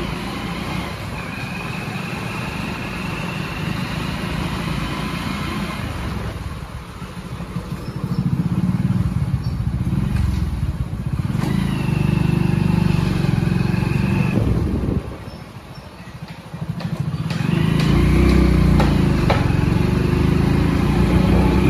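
Motor vehicle engine running close by. It grows louder about a third of the way in, drops away briefly around three quarters through, then rises again.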